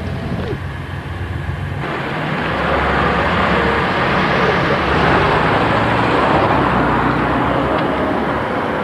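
A motor vehicle running with a low engine hum. About two seconds in, a rush of road and wind noise comes in suddenly, grows louder, then holds steady.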